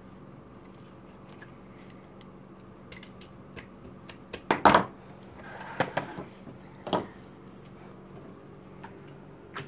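Hands handling a plastic toy mixer bowl and sticky slime on a tabletop: scattered light clicks and knocks begin about three seconds in, the loudest knock a little before halfway.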